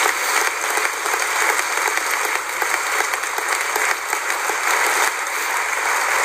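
A large church congregation applauding, a dense, steady clapping that holds at one level throughout.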